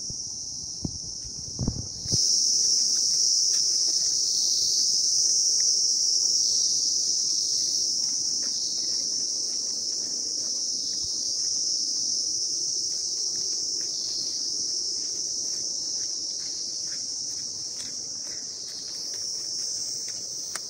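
A chorus of insects keeps up a steady, high-pitched shrill drone, jumping louder about two seconds in. Faint scattered ticks and a low thump or two near the start sit beneath it.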